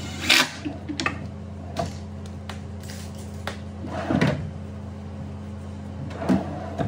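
Plywood drawer on metal ball-bearing slides being handled and pushed shut: a sharp knock just after the start, a few light clicks, a rolling slide and bump about four seconds in, and another knock near the end.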